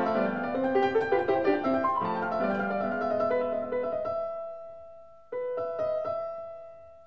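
Background piano music: a run of notes, then a held chord that fades away, and a new chord struck about five seconds in that also fades.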